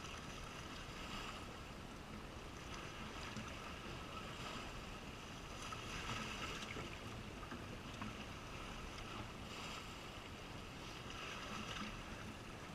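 Seaside ambience: a steady wash of wind and calm sea, swelling gently a few times.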